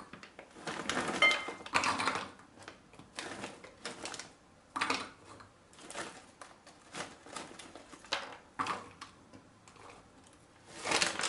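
Walnut halves dropped by hand into a small plastic chopper bowl: irregular light clicks and clatters, with the plastic nut bag rustling.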